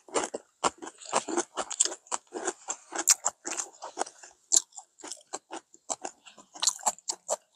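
Close-miked eating of ramen noodles: slurping and chewing, a quick, irregular run of short wet smacks and clicks.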